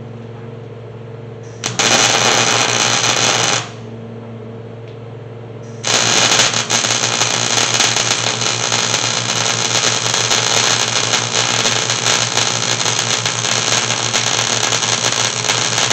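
Arc welding on a steel truck frame rail, welding out a C-notch that was tacked in: a short burst of welding about two seconds in, a pause with only a steady low hum, then one long continuous bead from about six seconds in.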